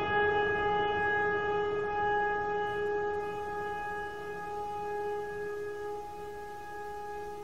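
Added background music: one long sustained pitched tone, struck sharply just before and fading slowly, like a bell or bowl left to ring.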